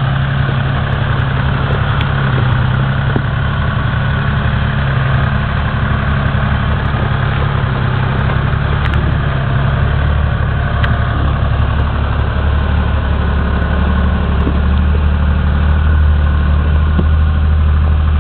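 M561 Gama Goat's Detroit Diesel 3-53 two-stroke diesel running steadily at low revs as the vehicle crawls along a rough trail. Its note sits lower and a little louder in the second half.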